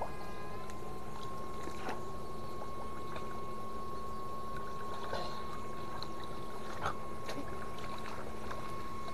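Electric fish shocker running, giving a steady high-pitched whine over a low hum, with a few light splashes and clicks.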